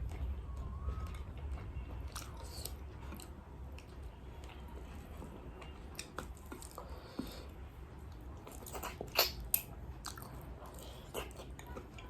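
Close-miked chewing of crispy fried chicken, with scattered crunches and wet mouth clicks and a louder burst of crunching about nine seconds in.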